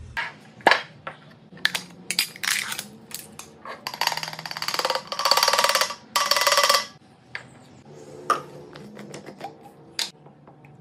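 Small hard dry pieces poured from a canister into a container: a dense rattling pour of about two seconds, a brief pause, then a shorter run. Before it come scattered clicks and knocks of containers being handled, and a few more clicks near the end.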